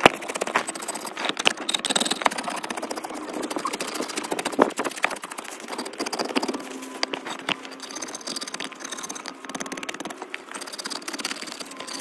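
Metal scraper blade scraping and gouging a block of soft, chalky white rock, a dense run of short scratchy strokes with crumbs and powder breaking off.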